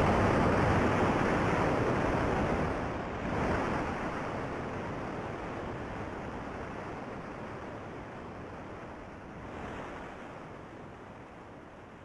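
Rushing water, a steady hiss with two brief swells, about three and a half seconds and ten seconds in, fading steadily away.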